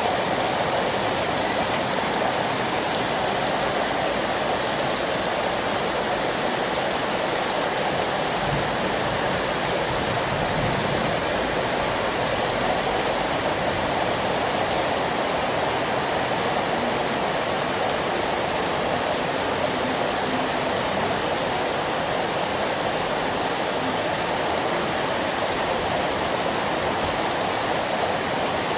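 Rain falling steadily in a thunderstorm, an even, unbroken hiss.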